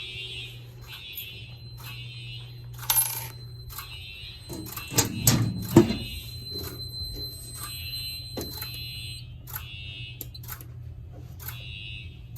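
Siemens U-MHU fire alarm horns sounding in repeated short blasts, about one a second, the horns out of sync with each other. A short clatter about three seconds in and a few heavier knocks about two seconds later stand out over them.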